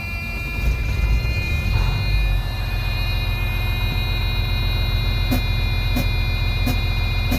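Truck engine starting and settling into a steady idle, while the freshly cleaned air-compressor unloader valve is put to the test. From about five seconds in, sharp clicks repeat roughly every two-thirds of a second.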